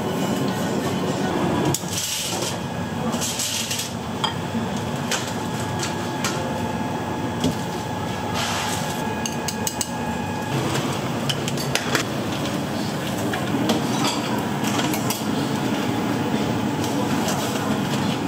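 Restaurant kitchen at work: repeated clinks and knocks of metal utensils against bowls and pots over a steady hum, with two short hisses about two and nine seconds in.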